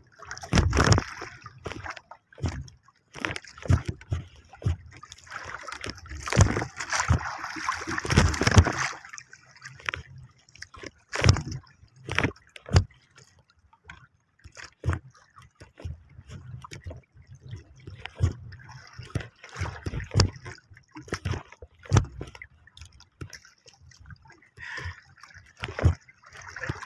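Water sloshing and slapping against the wooden hull of a small outrigger canoe, in irregular surges, with scattered knocks and bumps on the boat.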